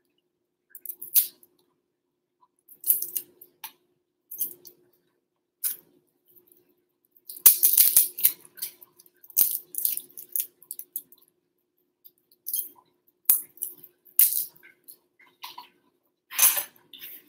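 Garlic cloves being peeled with a small knife: irregular short scrapes and crackles of the knife against the papery skin, with now and then a light knock, in quick bursts separated by quiet gaps.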